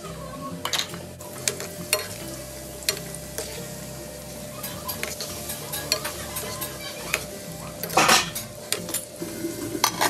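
Chicken nuggets deep-frying in hot oil in a hard-anodised wok, with a steady sizzle. Metal tongs click and clink against the pan as the pieces are turned, and the loudest clatter comes about eight seconds in.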